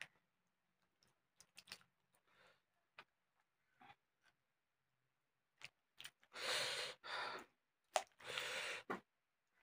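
A hand squeezing and mixing water-soaked rice (pakhala) in a steel bowl: faint scattered clicks and small wet sounds, then two louder wet, noisy rushes of about a second each in the second half.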